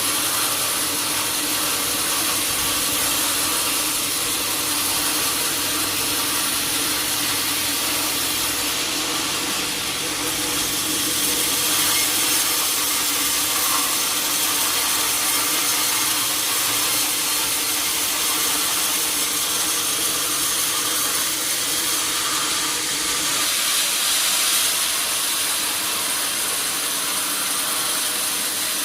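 Sawmill saw cutting a teak log: a steady, high rushing noise over a constant machine hum, with no breaks.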